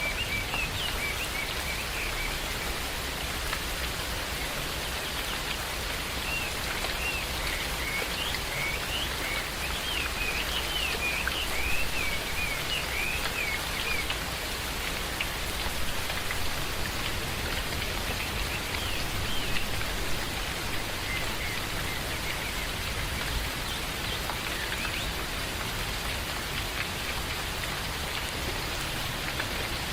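Steady rain falling in a forest, with birds chirping over it through the first half and briefly again later on.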